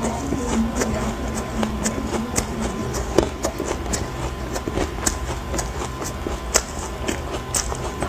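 Ice being bitten and chewed close to the microphone: irregular sharp crunches, several a second at times, over a steady low hum.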